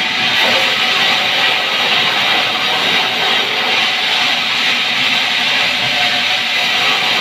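Large vertical band sawmill running, its blade cutting lengthwise through a pine log with a steady, loud, hissing whine.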